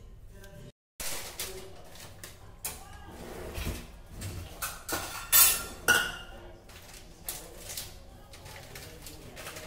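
Hand kneading crumbled chhena on a stainless steel plate: the palm and fingers press and scrape against the metal in irregular scrapes and knocks, the loudest two about halfway through. The sound cuts out briefly about a second in.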